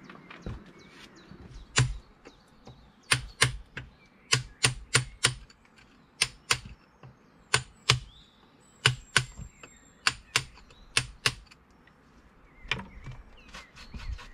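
Hand hammer striking into wood, about twenty sharp blows in short runs of two to four, roughly three a second, with brief pauses between the runs.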